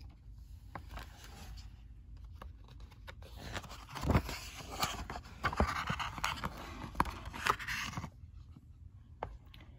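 A picture-book page being turned by hand: paper rustling and sliding, with a few light handling taps. It is loudest about four seconds in.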